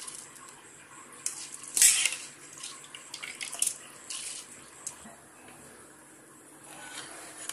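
Basmati rice tipped spoonful by spoonful into a pot of boiling biryani liquid: a few short wet splashes, the loudest about two seconds in.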